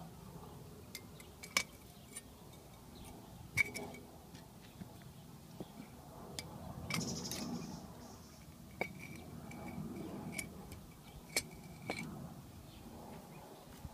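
Scattered sharp clicks and light clinks, about a dozen spread irregularly, some with a short ring, over a low uneven rumble, with a brief scrape about seven seconds in.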